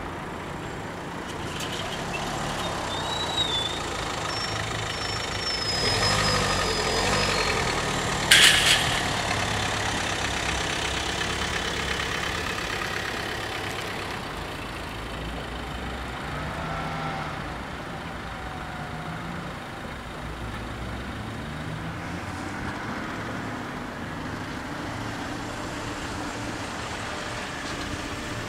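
Car engines running and idling at a closed level crossing. A high squeal comes a few seconds in, and a single sharp clack about eight seconds in is the loudest moment.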